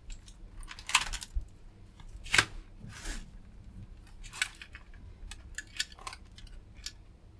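Hands rummaging through a plastic tub packed with loose salvaged wires and connectors: rustling cable and scattered light plastic clicks, with a few louder swishes in the first four seconds or so.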